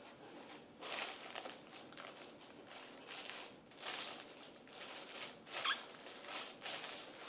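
Packaging being handled during an unboxing: irregular rustling and scraping bursts, several over a few seconds.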